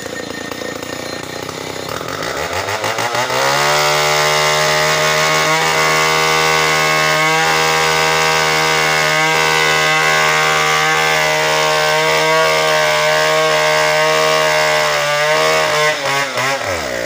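Stihl 070 two-stroke chainsaw revving up about two seconds in, then running steadily at full throttle as it saws into the trunk of an ironwood (ulin) tree; the revs drop near the end.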